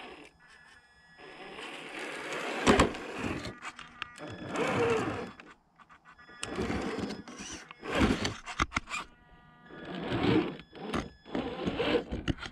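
Electric motor and geared drivetrain of a Carisma SCA-1E scale RC crawler whining in bursts as it is throttled on and off, the pitch rising and falling with each burst.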